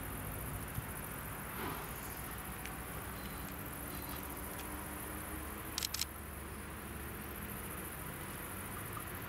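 Summer countryside ambience: a steady high-pitched chirring of insects in the grass over a low hum, with two sharp clicks about six seconds in.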